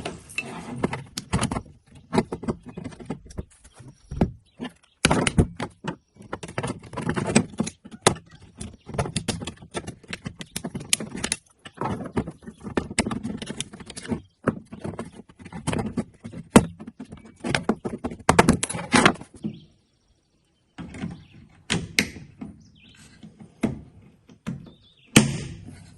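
Irregular clicks, knocks and clunks of metal and plastic parts being handled and pried at on a pickup tailgate handle, as a retaining clip is pried open to swap the lock cylinder.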